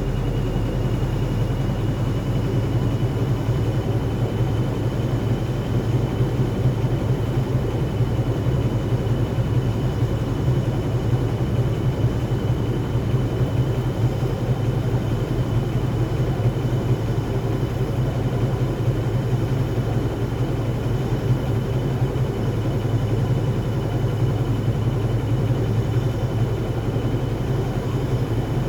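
Gorenje WaveActive washing machine in an intermediate spin: a steady heavy rumble from the drum with a thin motor whine that rises slightly at first and then holds. The drum is spinning with an unbalanced load, and the spin is held back by too many suds.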